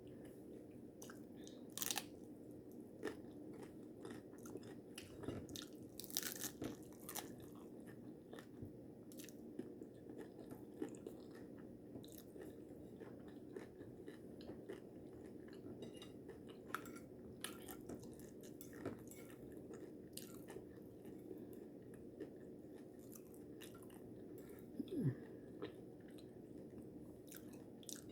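A person eating crunchy food: irregular crisp crunches and chewing, with a faint steady low hum underneath.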